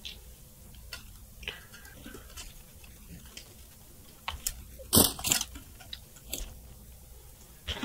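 Dry twigs of a woven twig ball crackling and rustling as hands work a thread through them: scattered small clicks, with a louder burst of crackles about five seconds in.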